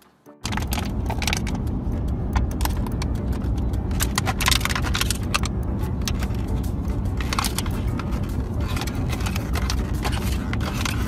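German Shepherd puppy chewing a plastic water bottle: irregular crackling and crinkling of the plastic over a steady low rumble of car road noise, starting suddenly about half a second in.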